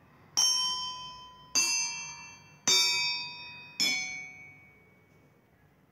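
A jal tarang of four stainless-steel cups struck one after another with a small mallet: four bright metallic rings, each fading over about a second, the last one fainter. Each cup holds a different amount of water, so each rings at a different pitch.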